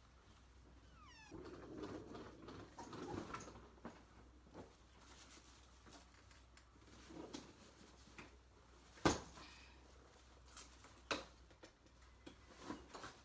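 A domestic cat meowing in the first few seconds, one call sliding down in pitch. A few sharp knocks follow, the loudest about nine seconds in.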